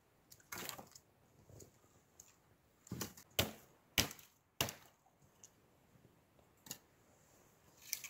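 Sharp wooden cracks and knocks: one about half a second in, a quick run of four roughly half a second apart around three to four and a half seconds in, then two more single ones near the end.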